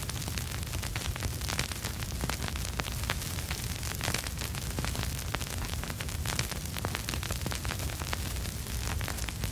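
Vinyl record surface noise with no music playing: a dense crackle of small clicks and pops over a steady hiss and a low rumble.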